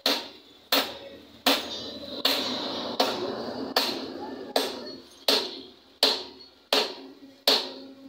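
Eleven evenly spaced hammer blows on metal at the axle nut of an auto-rickshaw's rear wheel, a little more than one a second, each with a short metallic ring: the nut is being driven loose or tight.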